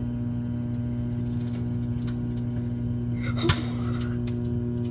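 Microwave oven running with a steady hum while turkey sticks heat inside. They give a few faint ticks and one sharp pop about three and a half seconds in.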